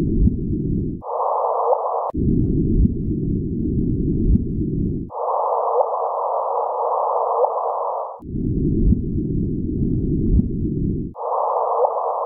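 Black hole sonification, space data turned into audio for the black hole Gaia BH1. A rough low hum and a rough, higher-pitched band take turns, switching abruptly every few seconds.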